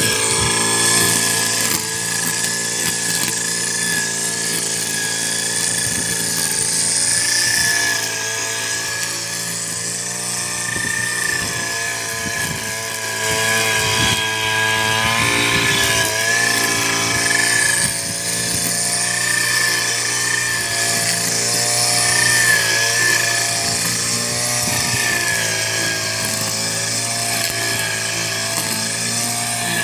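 Canaris petrol brush cutter running at high speed while its trimmer head cuts grass. It makes a steady, loud engine drone that dips slightly a few times.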